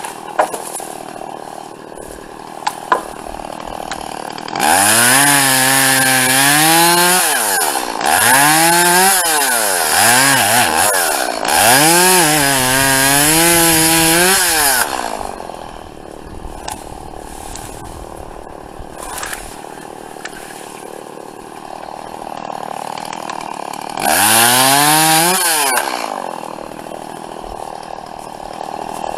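Two-stroke chainsaw idling, then revved up for several cuts in a row through thin fallen branches, its pitch climbing as the throttle opens and dropping back to idle after each cut. One more cut comes near the end.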